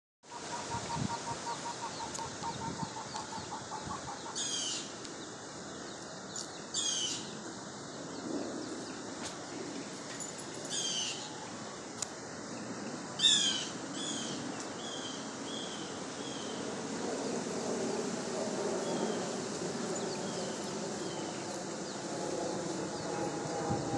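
Baby chicks peeping: several bursts of quick, high, falling chirps, the loudest about thirteen seconds in, followed by a run of softer single peeps. A lower call repeats a few times a second during the first few seconds.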